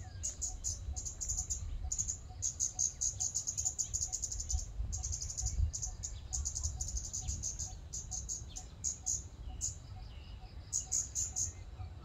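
Scarlet-backed flowerpecker calling: quick runs of thin, high ticking notes, repeated in bursts with brief pauses, over a low background rumble.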